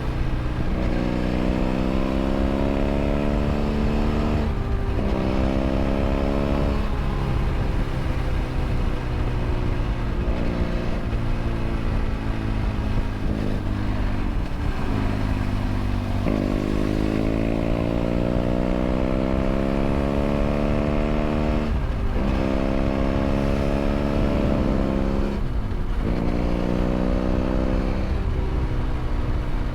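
BMW F800 GS's parallel-twin engine through a LeoVince LV ONE EVO exhaust, heard onboard while riding. The engine pitch rises in several long pulls, breaking off briefly at each throttle roll-off or gear change, over a steady rumble.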